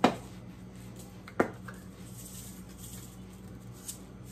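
Two sharp knocks of kitchen containers being handled, about a second and a half apart, over a steady low hum.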